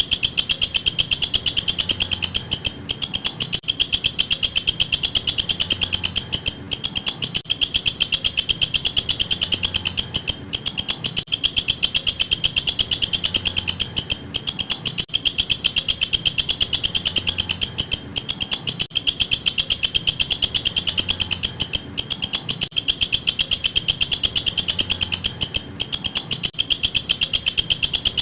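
Walang kecek insect calling: a loud, fast, high-pitched ticking trill with short breaks now and then.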